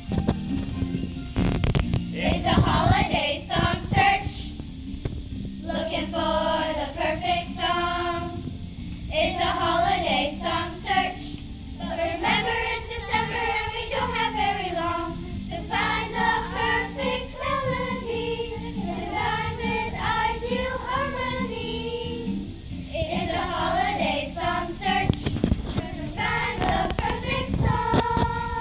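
Children's choir singing a song together in phrases of a few seconds with short breaks between them.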